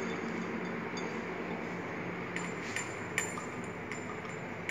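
Glass test tubes clinking a few times as they are shaken, over a steady low hum.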